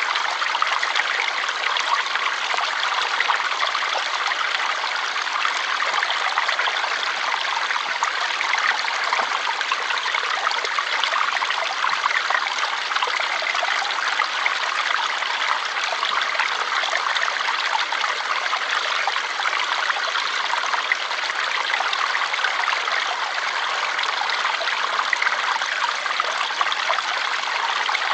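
Flowing water, a stream running with a steady, even rush and fine trickling.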